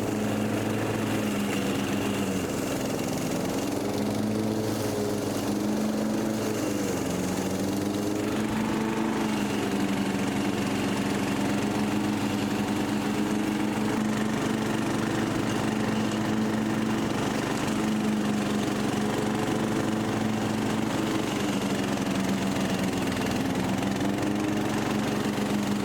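Rebuilt Briggs and Stratton 17.5 HP lawn mower engine running steadily at a constant speed. Its pitch dips briefly a couple of times in the first several seconds, then holds even.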